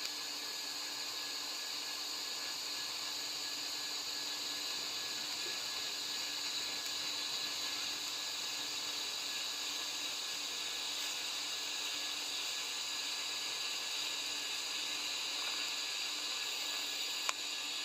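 TIG welding arc hissing steadily while a turbo downpipe flange is welded, with one sharp click near the end.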